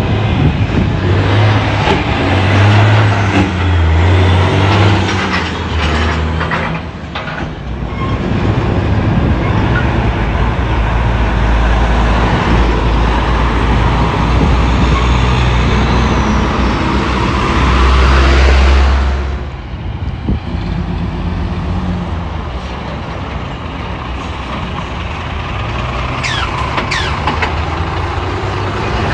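Heavy diesel truck engine running, loud throughout and dropping somewhat about two-thirds of the way through.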